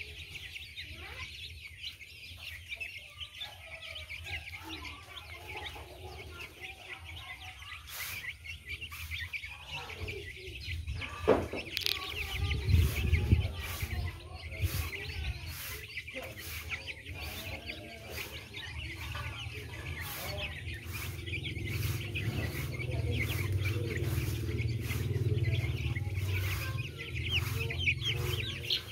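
A flock of young chicks peeping continuously, a dense high chirping from many birds at once. A low rumble comes in about halfway through and swells again near the end.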